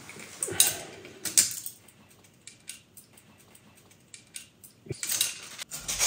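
Metal retractable tape measure being handled, with a few sharp metallic clicks and rattles in the first second and a half, then more clinking and handling noise near the end.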